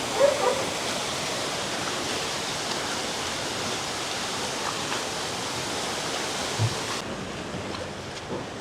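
Steady rush of flowing water, like a waterfall or pumped water feature at a sea lion pool, with a brief faint voice near the start. The highest hiss drops away suddenly about seven seconds in.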